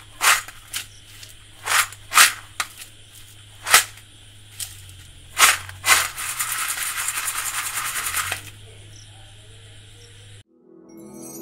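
Crisp fried peanut pakoras rattling on a steel plate as it is handled: a string of sharp clatters, then about two seconds of continuous rattling, over a low steady hum. The sound cuts off near the end and music begins.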